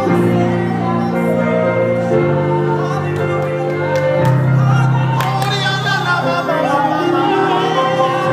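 Slow worship music: sustained chords held and changed every couple of seconds, with voices singing over them in the second half.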